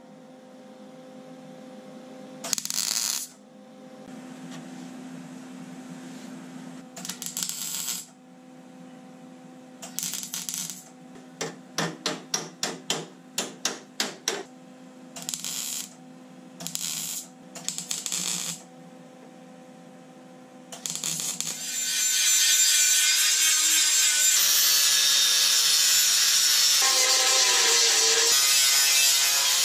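MIG welder crackling in a series of short bursts as welds and tacks are laid on sheet steel, over a steady low hum. About two-thirds of the way in, an angle grinder starts and runs continuously, grinding down the welds.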